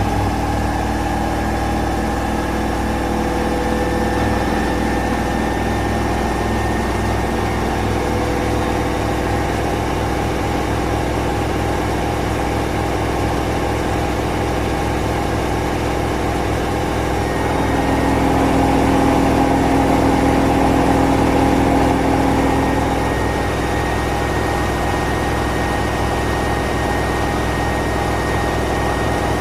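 A machine running steadily with a fast, low rhythmic pulse, growing louder for a few seconds past the middle before settling back.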